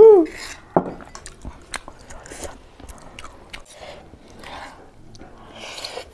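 Close-miked eating of instant noodles: chewing with many small wet clicks and a few short slurps. A brief vocal sound comes right at the start.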